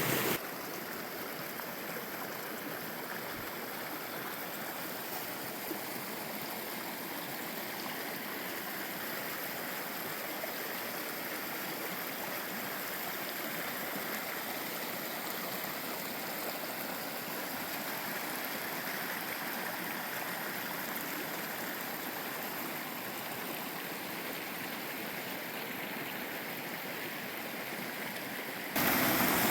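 Small waterfall and mountain stream: a steady, even rush of falling and flowing water.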